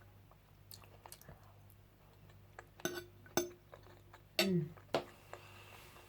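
Cutlery clinking against a plate a few sharp times while someone eats, the loudest clinks coming in the second half.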